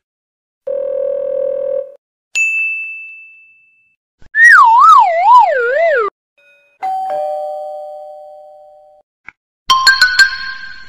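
A string of separate short stock sound effects with silent gaps: a brief steady buzzer tone, a high bell ding that fades, a loud wavering siren-like warble, a fading two-note chime, a single click, then a quick run of bright chiming notes near the end.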